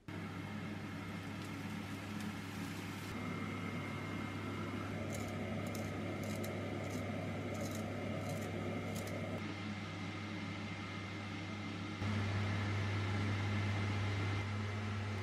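Induction hob running with a steady low electrical hum and fan noise, which steps up louder about twelve seconds in. In the middle a pepper grinder is turned several times, giving a run of short gritty clicks over the hum.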